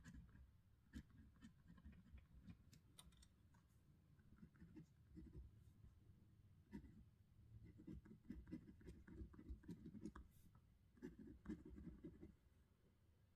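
Faint scratching of a pen writing on paper by hand, in short irregular strokes with small ticks.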